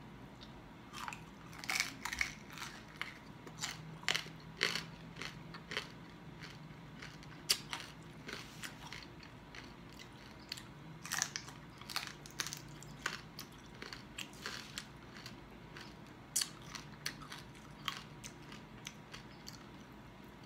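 Close-up mouth sounds of a person biting and chewing crispy deep-fried pork hock skin (lechon kawali). The skin crunches in many short, irregular crackles throughout.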